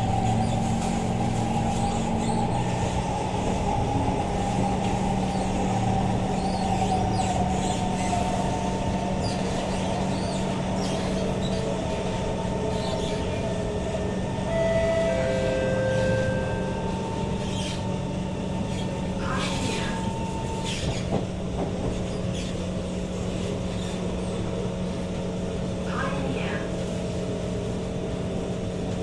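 Kawasaki Heavy Industries C151 metro train heard from inside a carriage while running: a steady hum and wheel-on-rail noise, with a motor whine that falls in pitch over the first several seconds. A few brief sharp squeaks or clicks come later on.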